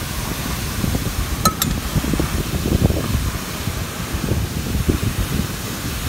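Steady rush of a waterfall with wind buffeting the microphone, and two quick metal clinks about one and a half seconds in from a ladle knocking a metal pot.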